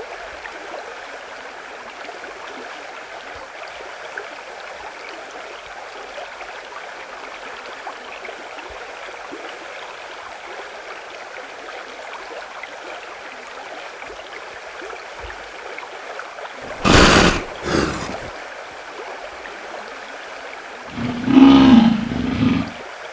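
Amur leopard snarling: a short snarl about two-thirds of the way in with a smaller one just after, then a longer, louder snarl near the end, over a steady hiss.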